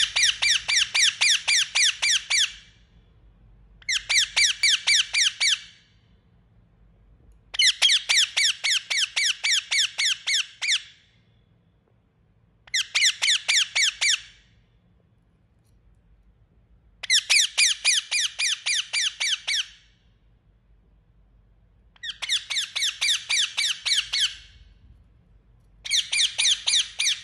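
Indian ringneck parakeet calling in bursts of rapid, high-pitched repeated notes, about six a second. Each burst lasts two to three seconds, with short pauses between, seven bursts in all.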